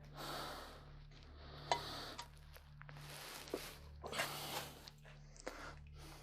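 Small metal parts clicking a few times amid rustling handling noise, as valves are worked out of a Chevy 350 cylinder head, over a faint steady low hum.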